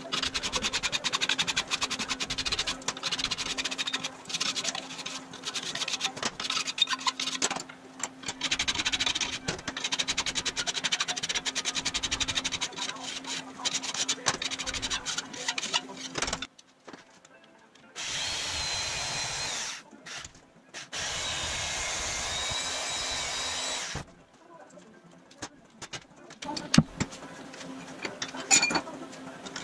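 Hand file rasping along the edge of an aluminium angle clamped in a bench vise, in quick repeated strokes. About 18 seconds in, a small power tool runs steadily twice for a few seconds each, then the filing resumes with a few sharp knocks near the end.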